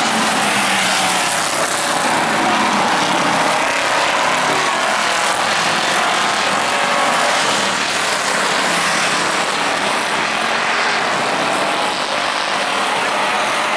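A pack of street stock race cars' V8 engines running around the oval, loud and steady, their pitches rising and falling as the cars pass.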